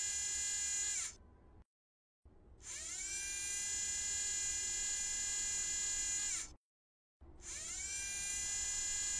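A high, steady electric motor whine that winds down in pitch and cuts out about a second in, spins back up about two and a half seconds in, then winds down and spins up again between six and eight seconds.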